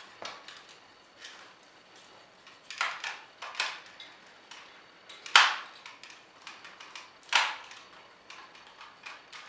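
Hard plastic toy parts of a Power Rangers Samurai Clawzord figure clicking and knocking as they are handled and moved into place: a few sharp clicks, the loudest about five seconds in and another about two seconds later.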